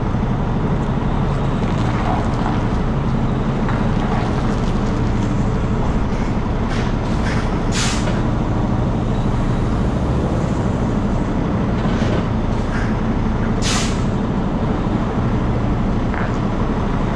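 Semi-truck diesel engine running at low revs as the rig backs a tanker trailer, with short hisses of air from the air brakes, the loudest about eight and fourteen seconds in.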